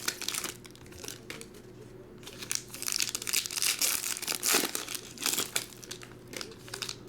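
Trading-card pack wrappers crinkling and tearing as packs are opened and handled, sparse at first and busier from a couple of seconds in.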